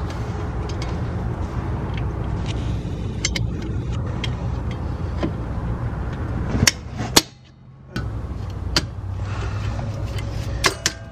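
Scattered sharp metal clicks and clinks of locking needle-nose pliers working the spring hardware of a Toyota RAV4 drum brake, over a steady low rumble. The sound drops out briefly just past the middle.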